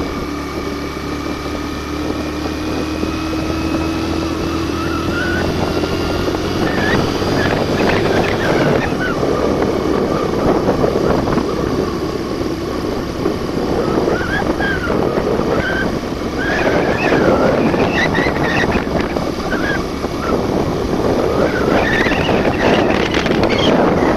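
Suzuki GN125's single-cylinder four-stroke engine labouring uphill on a rough dirt track with a passenger aboard. Its pitch rises slowly over the first several seconds, then it revs up and down repeatedly with the throttle, with wind noise on the microphone.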